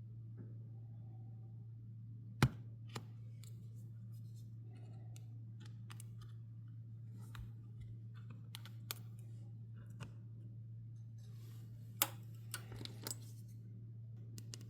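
Sparse sharp clicks and taps of small metal repair tools working on an opened iPhone, the loudest about two and a half seconds in and another about twelve seconds in, over a steady low hum.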